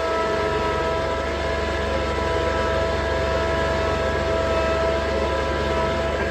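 Tractor pulling a box blade, its engine running at a steady speed with a constant whine over the low engine rumble.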